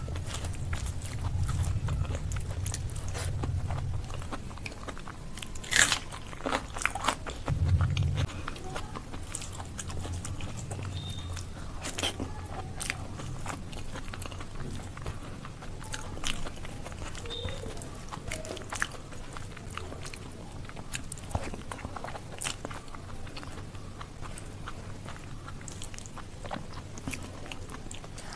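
Close-miked chewing of a mouthful of rice mixed with mashed bharta, with many scattered sharp, wet clicks from the mouth.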